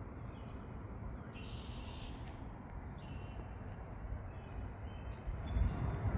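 Small songbirds calling with short, high chirps, and one longer, harsher call about a second and a half in, over a low rumble that grows louder near the end.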